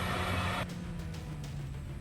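Heavy machine's engine running loud and steady, cut off abruptly less than a second in, leaving a quieter low hum under background music.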